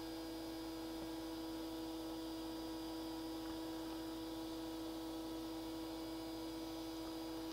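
Steady, even electrical hum with one clear tone and fainter overtones; no handling sounds stand out.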